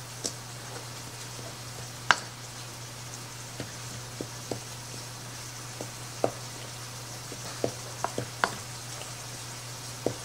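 Wooden spoon stirring a dry cornmeal and flour mix in a ceramic bowl, giving irregular sharp clicks as it knocks against the bowl, the loudest about two seconds in. A steady low hum runs underneath.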